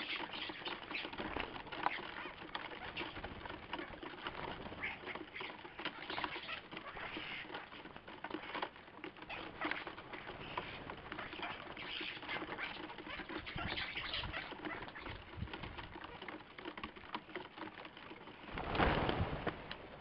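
A flock of common starlings chattering and clicking while squabbling over a feeder, with wings flapping among them. About a second before the end, a loud rush of wings as the flock takes off at once.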